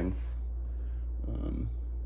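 Steady low electrical hum, with the end of a spoken word right at the start and a faint murmur about a second and a half in.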